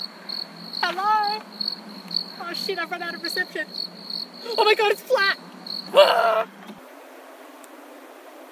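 A high chirp pulsing evenly two or three times a second, with a woman's high voice crying out in short, strongly bending bursts over it, loudest about six seconds in. Both cut off abruptly near the end, leaving a faint steady hiss.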